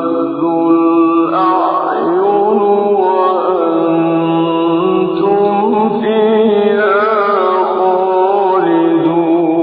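A male voice reciting the Quran in melodic tajweed style, holding long drawn-out notes that glide and waver in pitch.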